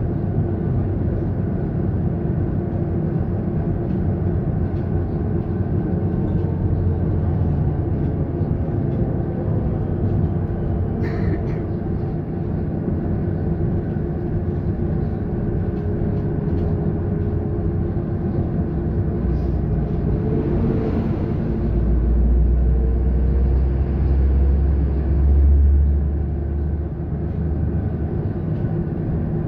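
Interior noise of a Trolza Megapolis trolleybus driving along: a steady low rumble with a few held humming tones. There is a short sharp rattle about eleven seconds in, and the rumble grows heavier for several seconds from about twenty-two seconds in.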